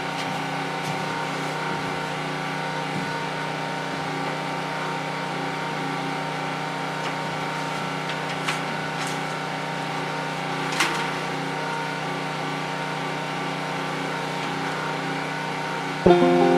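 A steady mechanical hum, like a motor running at constant speed, with a few faint clicks; music comes in near the end.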